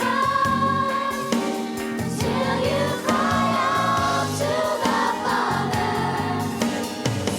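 Youth choir singing a Christian song with instrumental accompaniment.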